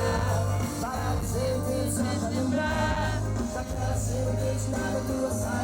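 Pop-rock band music with a male voice singing over a steady, heavy bass line.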